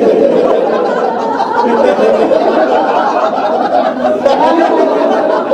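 A group of people laughing together, many voices overlapping without a break. It is the deliberate, self-started group laughter of a laughter-yoga exercise, done while looking at wristwatches.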